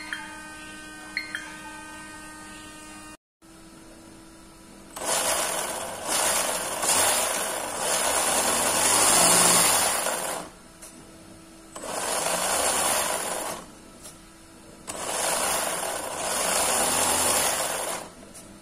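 WPL D12 RC truck's electric motor and drivetrain whirring as the throttle is applied three times, spinning the wheels freely. Each run lasts two to five seconds, and the first rises and falls in pitch as it revs up and back down.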